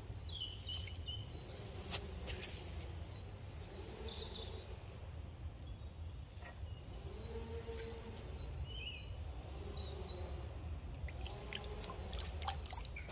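A small songbird calling: runs of short, high, down-slurred notes, two or three a second, stopping and starting a few times. Under it runs a steady low rumble.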